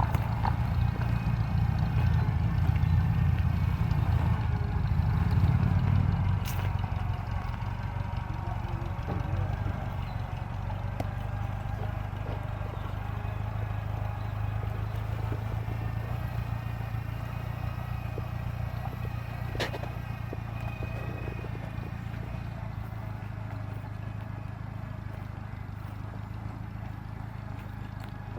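Farm tractor engine running steadily as it is driven, loud for the first six seconds and then gradually fading. Two sharp clicks stand out, one about six seconds in and one near twenty seconds.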